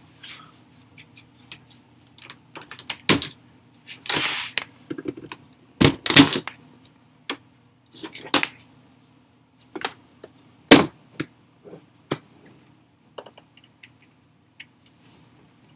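Irregular clicks and knocks of a laptop being handled, with louder knocks about 3, 6 and 11 seconds in and a brief rustle about 4 seconds in, over a faint low hum.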